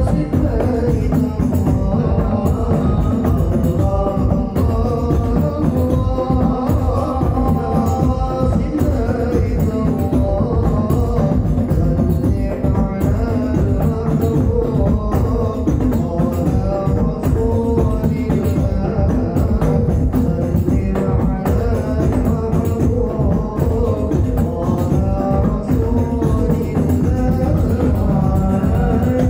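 Hadrah ensemble playing a sholawat: rebana frame drums, a large bass drum and a tam drum beat a dense, steady rhythm under voices singing the melody in unison.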